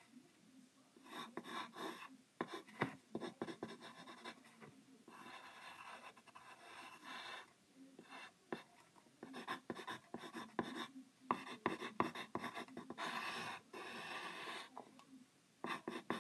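Pencil sketching on paper: short, irregular scratching strokes with brief pauses between them.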